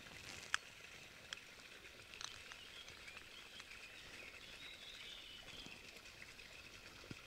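Quiet outdoor background with a faint high chirping, broken by a few small clicks of a metal camera belt clip being handled and its two pieces fitted together over a belt; the sharpest click comes about half a second in.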